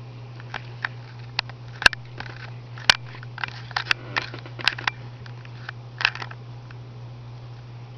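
About a dozen sharp clicks and taps at irregular intervals, the loudest about two and three seconds in, over a steady low hum.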